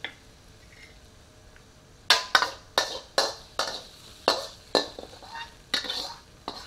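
Metal wok ladle knocking and scraping against a steel wok as stir-fried chicken is pushed out onto a plate: about ten sharp ringing clinks, roughly two a second, starting about two seconds in.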